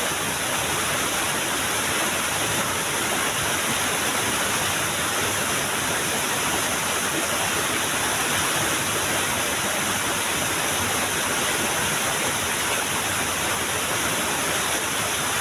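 A small waterfall rushing steadily, a constant even wash of falling water.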